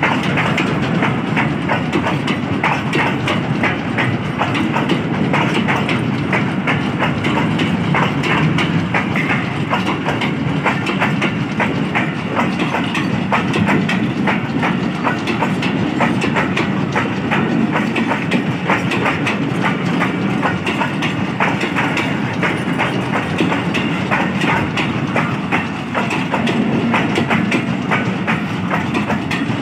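Loaded tank wagons of a freight train creeping slowly past, their steel wheels rolling over the rail with a steady rumble and a dense run of clicks and clanks from the joints and couplings.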